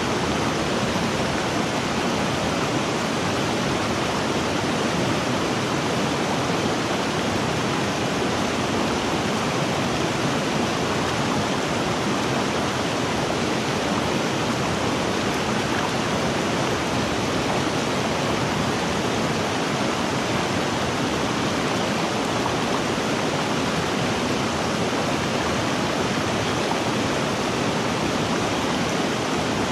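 River water rushing, a steady, even wash with no separate splashes, calls or breaks.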